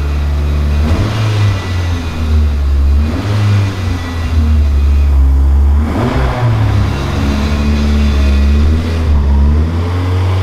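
Newly built forged Nissan SR20DET turbocharged four-cylinder engine running, its revs rising and falling several times.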